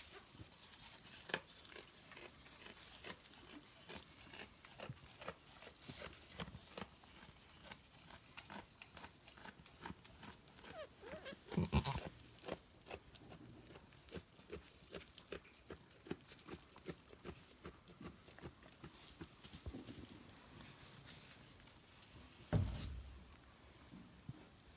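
Goats moving about: a steady patter of small clicks and rustles, with two louder low sounds about halfway through and near the end.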